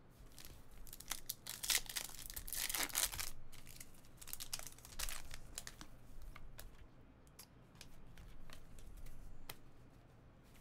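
Foil trading-card pack wrapper being torn open and crinkled by hand, with crackly rustling in the first few seconds. After that come scattered light clicks of cards being slid and flicked through the hands.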